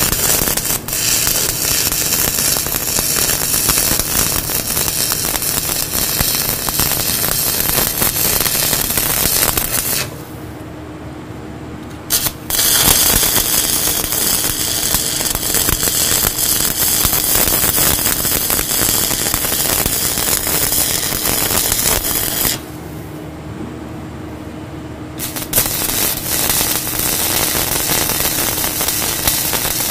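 Stick (shielded metal arc) welding arc crackling steadily as a weld bead is run on steel plate. It stops twice for a couple of seconds, about ten seconds in and again about twenty-two seconds in, then restarts.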